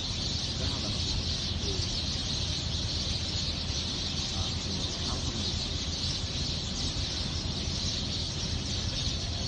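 A big flock of sparrows chattering together, a dense, unbroken chorus of overlapping chirps.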